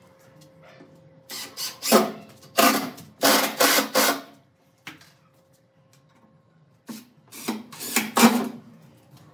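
Cordless drill running in short bursts as it works into the wooden chair, in two clusters of whirs with a pause of a couple of seconds between them.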